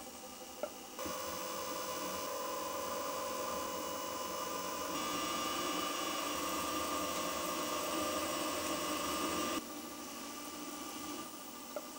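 Milling machine spindle running steadily while a twist drill cuts into a metal plate, throwing long curls of swarf. The cutting noise swells about a second in, shifts slightly higher in pitch about halfway through, and falls back to the plain running hum near the end, with a couple of light clicks.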